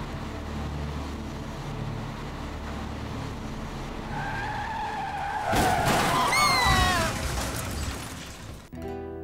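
Car tyres screeching in a skid over a low engine rumble. The squeal starts about four seconds in, grows loudest around six seconds and falls in pitch before stopping short.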